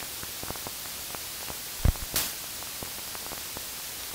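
Steady hiss of a noisy audio recording with scattered faint clicks, a single sharp low thump about two seconds in and a short burst of hiss just after it.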